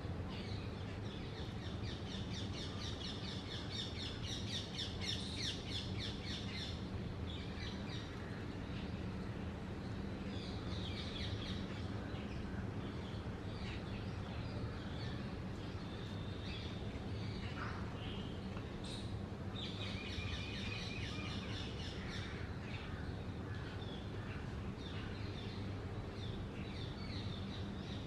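Rapid high chirping calls, about five a second, coming in spells of a few seconds three times, over a steady low background hum.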